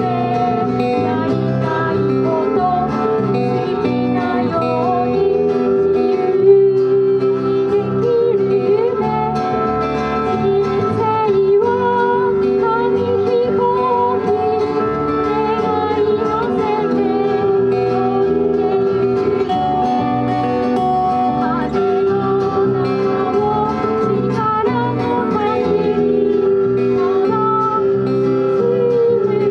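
A live band playing: strummed acoustic guitars and electric bass, with a woman singing into a microphone, amplified through PA speakers.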